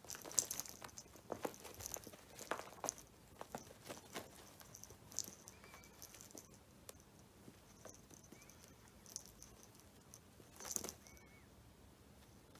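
A cat scuffling on a rug as she rolls, kicks and bats at a fabric toy: irregular soft scrapes, taps and rustles, busiest in the first few seconds, with a louder scuffle near the end.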